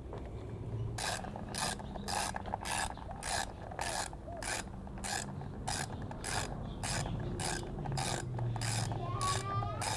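Ratchet wrench clicking in a steady rhythm, about three clicks a second, as the 10 mm bolt holding a VE Commodore V6's ignition coil is wound out.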